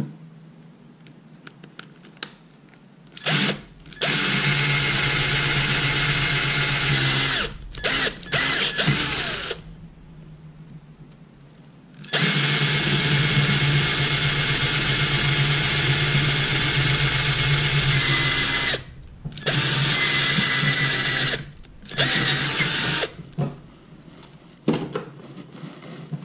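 Cordless drill boring bolt holes through a hydrofoil plate and the aluminium anti-ventilation plate of a Suzuki 2.5 hp outboard. It runs in about six spells, the longest over six seconds, with short trigger blips between them.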